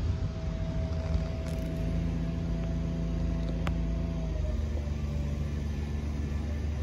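Car engine running with steady road noise, its note dropping lower about four and a half seconds in. A single light click a little past halfway.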